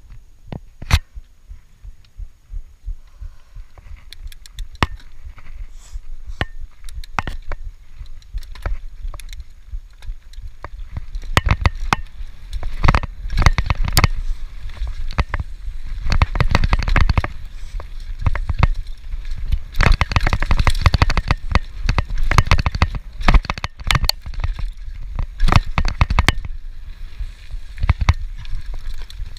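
Norco Shore 2 full-suspension mountain bike riding down a dirt forest trail, heard from a chest-mounted camera. There are scattered clicks and knocks at first, then from about eleven seconds in a dense, loud rattling and knocking from the bike over the rough ground, with a low rumble that comes in surges.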